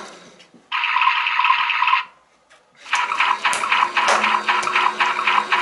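Toy washing machine running its wash cycle with a steady swishing water sound. It starts abruptly about a second in, breaks off for under a second around two seconds in, then starts again.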